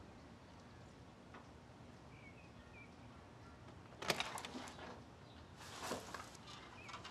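A wooden door's metal latch clicking and rattling as the door is opened, in two clusters of sharp clicks and knocks about four and six seconds in. Before that, faint bird chirps over a quiet room.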